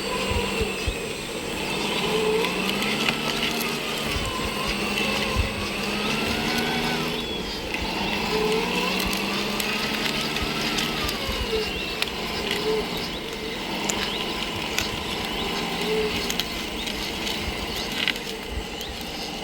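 Small electric motors of radio-controlled model construction machines whining, their pitch rising and falling again and again as the models are driven and worked, with light clicks and rattles.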